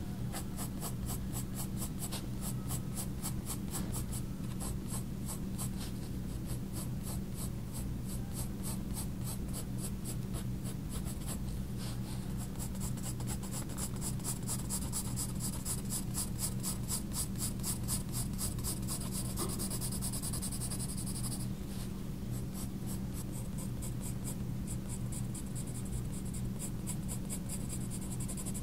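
Faber-Castell Polychromos colored pencil shading on sketchbook paper: quick, even scratchy strokes, several a second, as fur is hatched in. A steady low hum runs underneath.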